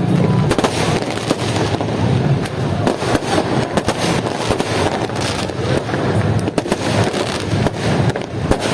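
Many fireworks going off at once: a dense, continuous crackle of bangs and pops overlapping one another.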